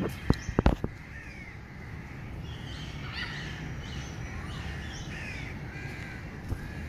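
Birds calling: a chatter of short, overlapping calls, busiest from about two to six seconds in, after a few sharp clicks in the first second.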